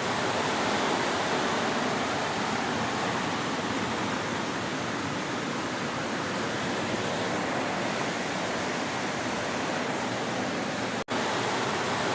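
Steady rush of heavy storm rain and running water, an even hiss with no pauses; it drops out for an instant about eleven seconds in.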